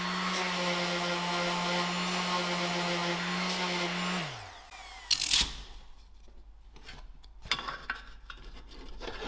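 Electric orbital sander running steadily while sanding a 3D-printed plastic bracket. About four seconds in it is switched off and its pitch falls as it winds down. A sharp knock follows, then light handling clicks.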